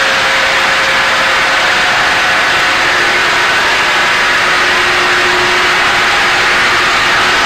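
Diamond wire saw machine running steadily: a loud, even machine noise with a strong hiss and a faint steady hum.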